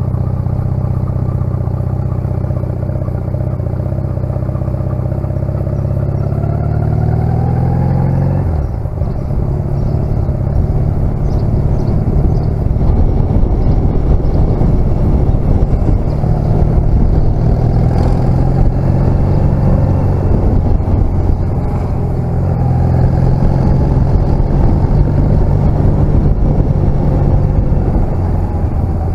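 1996 Honda CMX250C Rebel's parallel-twin engine running under way, climbing in pitch as it accelerates, then dropping suddenly about eight seconds in, as at a gear change. It then runs on steadily with a rougher, noisier sound.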